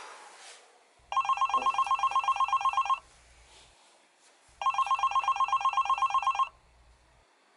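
Mobile phone ringing with a classic trilling telephone-bell ringtone: two rings of about two seconds each, a rapid warble of about ten pulses a second, with a pause between them.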